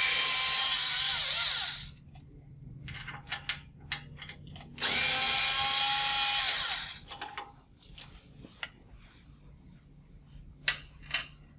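Cordless electric screwdriver running in two bursts of about two seconds each, backing out screws from the relay's rear terminal and blanking plates. Afterwards, a few sharp clicks and taps.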